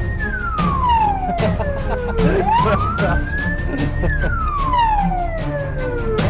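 Siren wailing, its pitch sliding slowly down, back up and down again, about four seconds to each rise and fall, over a steady low rumble and frequent sharp clicks.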